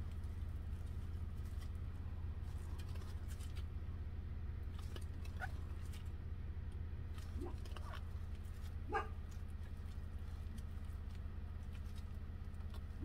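A steady low hum with scattered light clicks and two brief squeaks, about seven and a half and nine seconds in.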